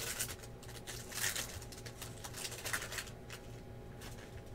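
Trading cards and their pack being handled: short, irregular rustling and scraping as cards are slid out of a pack of 2016 Topps Tier One baseball.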